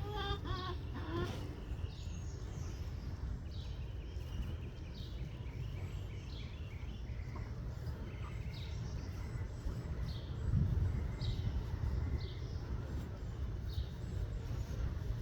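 A backyard chicken's short call at the start, then a bird chirping, short falling notes repeated about once a second, over a steady low wind rumble.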